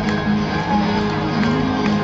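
Live music: a guitar strummed in a steady, driving pattern by a solo performer.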